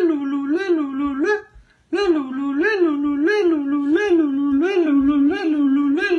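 A person's voice holding a wavering, siren-like tone whose pitch swings up and down about one and a half times a second, broken once by a short pause about a second and a half in.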